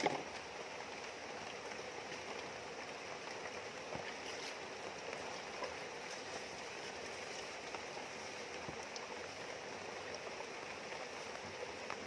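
Shallow rocky river rushing steadily over stones, a constant even wash of water noise.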